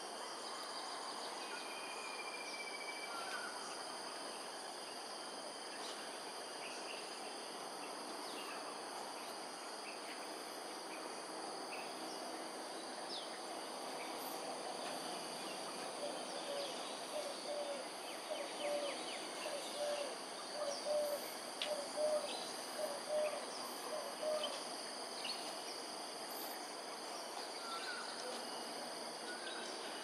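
Outdoor ambience dominated by a steady insect chorus, high continuous trilling over a wash of background noise. Midway there is a run of about a dozen short, low calls, a little more than one a second, lasting several seconds.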